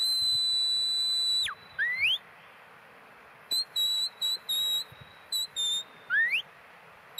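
Sheepdog handler's whistle commands to a working heading dog. It opens with a long, steady high whistle that drops sharply at its end, then a short rising whistle. A run of quick short pips follows, and another rising whistle comes near the end.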